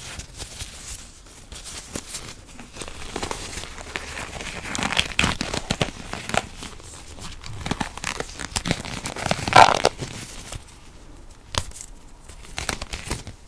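White rubber gloves crinkling, rubbing and stretching as one is pulled onto the hand close to the microphone. The sound is dense and crackly, loudest around the middle with a strong burst a little before ten seconds in, then thins to scattered clicks near the end.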